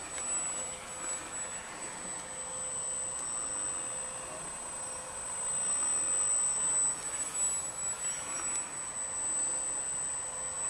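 Radio-controlled combat flying wing's motor and propeller whining as it flies, the pitch rising and falling as it passes back and forth.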